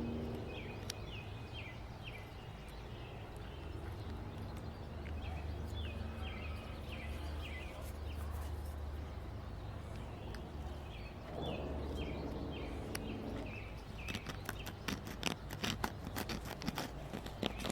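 A bird sings repeated phrases of short high notes over a steady low hum. In the last few seconds comes a run of sharp clicks and scrapes as a blade cuts into a small dried mud potter wasp cell.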